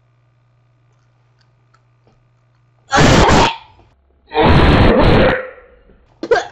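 A boy's two very loud, rough cries out, about a second and a half apart and starting about halfway through, as the hot sauce on the Skittles he is eating burns his mouth; a short gasp follows near the end.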